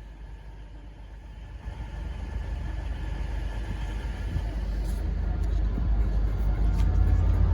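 Train hauled by a Class 67 diesel locomotive approaching, a low rumble of engine and wheels growing steadily louder.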